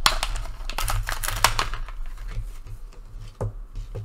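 Thin clear plastic blister pack crackling and clicking as it is peeled off its cardboard backing card and handled. The crackle is dense for about two seconds, then thins to a few scattered clicks.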